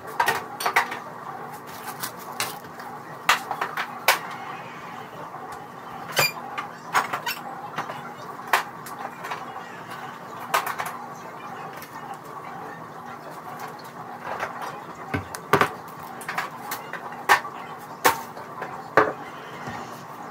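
Sped-up clatter of refrigerator shelves and food containers being handled and set down: irregular clicks and knocks over a steady low hum.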